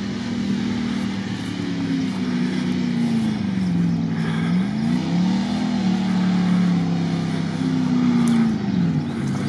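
Off-road vehicle engine revving under load in swamp mud, its pitch rising and falling over and over.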